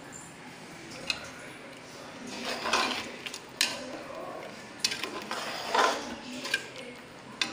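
Steel ladle stirring chicken gravy in an aluminium pressure cooker: wet scraping swishes, with several sharp clinks as the ladle knocks against the pot's sides.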